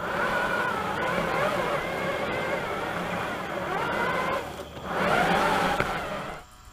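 Electric drive motors of an RC tank robot whining, the pitch wavering up and down with the throttle. The sound dips briefly past the middle, picks up again, then cuts off near the end, leaving a faint hum.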